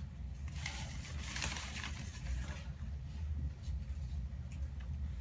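Paper rustling in bouts as orchid plants and their wrapping are handled, over a steady low hum.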